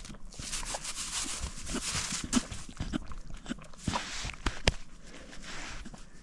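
A hiker's footsteps with steady rustling and brushing, broken by irregular knocks and crunches of feet on the ground.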